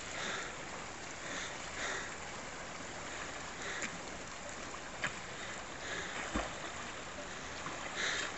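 Steady rush of river water, with soft splashes every second or two from a swimmer's strokes and a single knock about six seconds in.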